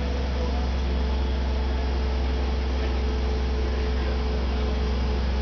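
Crane engine running at a steady speed, a constant low drone with a faint steady hum above it, while the boat hangs in the slings.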